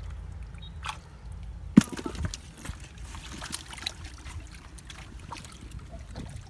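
Hands sloshing and scooping in a shallow hole of muddy water, with scattered small splashes and wet squelches over a steady low rumble. One sharp knock stands out about two seconds in.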